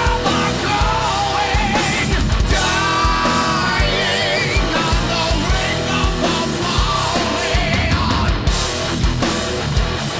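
Heavy rock music with distorted electric guitars, drums and a sung vocal line.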